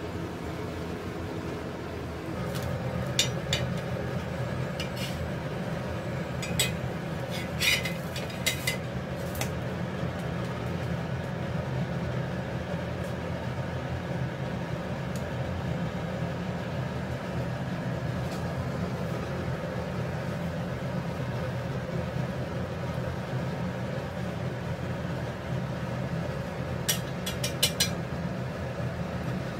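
Metal spatula clicking and scraping against a flat frying pan as stuffed egg parathas fry, over a steady low hum. There are a few sharp clicks in the first third and a quick run of clicks near the end.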